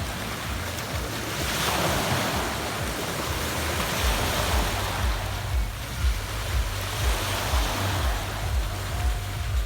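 Adriatic Sea waves washing in on a pebble beach, the wash swelling about two seconds in. From about halfway through, wind rumbles on the microphone in uneven gusts.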